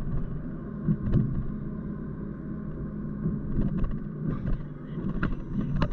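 Car driving noise heard from inside the cabin: steady engine and road rumble, with several short knocks spread irregularly through it.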